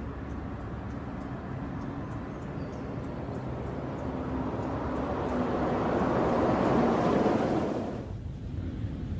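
A bus passing by: its engine runs steadily, then grows louder with rising road and tyre noise as it comes close about six to seven seconds in, and drops away soon after.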